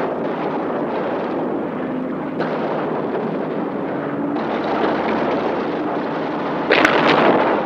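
Explosions from an air strike with bombs and rockets, heard as a continuous rumble, with a sharper, louder blast near the end.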